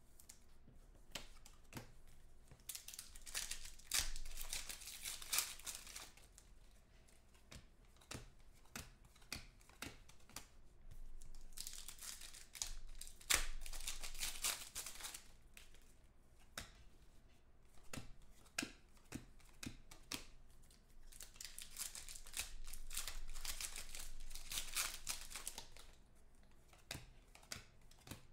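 Trading-card pack wrappers being torn open and crinkled, in three bursts a few seconds each, with light clicks and flicks of cards being handled in between.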